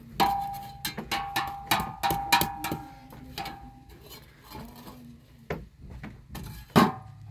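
Metal poker clanking and scraping against the iron firebox of a clay stove while stoking a fire of dry shrubs: a quick run of sharp knocks, the early ones ringing, and one loud knock near the end.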